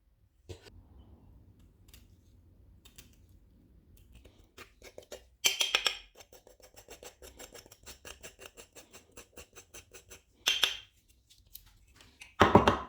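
Hand work on old metal garden shears: scattered clicks and scrapes, then a quick run of short, even rasping strokes. Louder scrapes come about five and a half, ten and a half, and twelve and a half seconds in.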